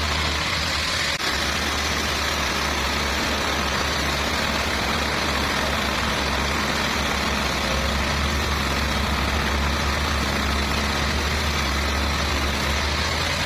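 Sawmill machinery running steadily: a low drone with an even rushing noise above it.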